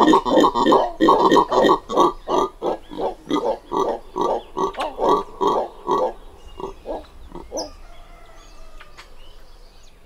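Two red howler monkeys close up, giving a rapid series of short grunts, about three a second, that thin out and fade away about eight seconds in. Faint birdsong follows.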